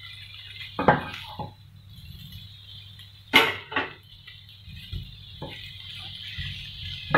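Wooden spatula knocking and scraping against a pan while stirring cauliflower florets with onions and tomatoes: a few sharp knocks, the loudest about halfway through, over a faint steady hiss.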